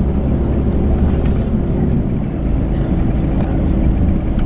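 Volvo B12B coach's 12-litre straight-six diesel running under way, heard from on board as a steady low drone. About two seconds in the loudness dips briefly and the engine note steps down slightly.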